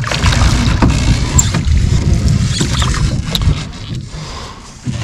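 A small rowing boat being manoeuvred on a lake: water sloshing and a few short knocks against the hull, over a steady low rumble.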